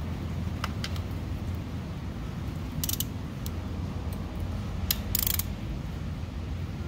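Ratchet wrench with a 17 mm socket clicking a few times as it is set on a scooter's oil drain plug, with a short run of quick clicks about five seconds in. A steady low hum runs underneath.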